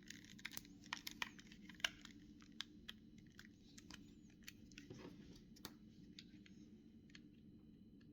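Faint, irregular clicks and crackles of the small plastic parts of a Samsung SGH-2100 mobile phone being handled and pried apart. The clicks come thickly at first, then more sparsely.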